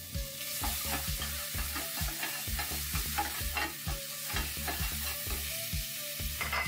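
Chopped onion and garlic sizzling in olive oil in a hot stainless steel skillet, with frequent short clicks and scrapes of a wooden spoon stirring against the pan.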